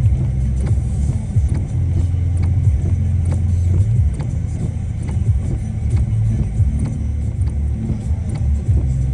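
Heavy rain, with gusting wind buffeting the microphone in an uneven low rumble and scattered raindrops ticking close by.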